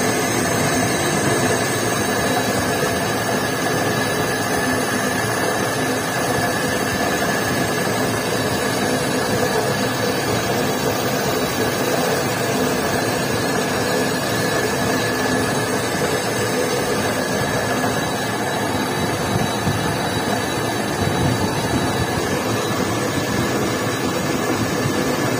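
Metal lathe running steadily while a boring bar cuts out the bore of a motorcycle cylinder: an even machine noise with a few steady tones.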